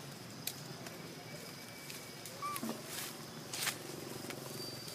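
Quiet outdoor ambience with a faint steady high tone, broken by a few sharp knocks and rustles from young macaques scrambling on a fallen log. The loudest knock comes about three and a half seconds in, and a single brief high squeak falls about two and a half seconds in.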